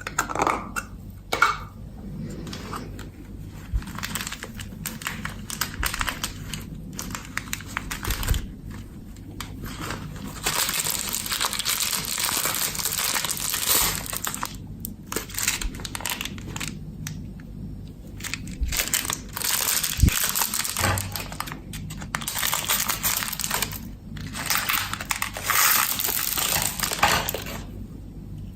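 Clear slime worked by hand with small things mixed into it: sticky crackling, crinkling and popping, in stretches of a few seconds broken by single clicks.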